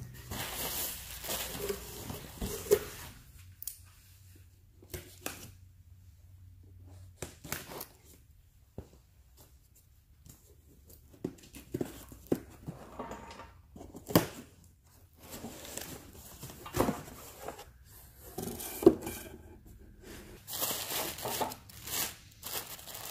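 Cardboard boxes being handled and opened: rustling in a shipping box, a few sharp knocks as boxes are set down on a concrete floor, and tearing. Near the end, plastic air-cushion packaging crinkles as a hand reaches into it.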